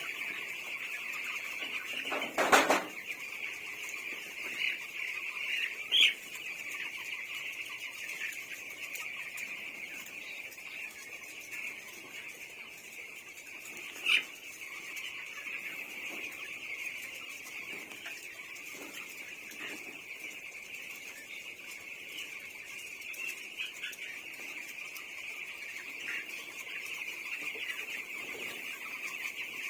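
A flock of chickens in a poultry house: a steady din of many birds calling at once. A louder short clatter comes about two and a half seconds in, and there are sharp clicks around six and fourteen seconds.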